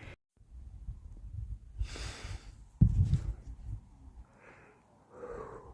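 A person breathing hard and giving short gasping noises at the shock of icy lake water on their feet. A low rumble of wind or handling runs under it, with a hissing breath about two seconds in and a single knock just before three seconds.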